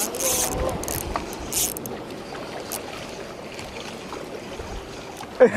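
Spinning reel being cranked to retrieve a small hooked fish, over a steady wash of sea water against the rocks, with a few light clicks in the first two seconds.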